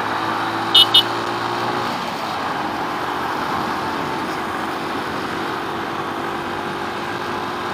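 Keeway RKS 100cc motorcycle riding along a highway: steady engine hum under road and wind rush, with two short, loud, high-pitched horn beeps about a second in.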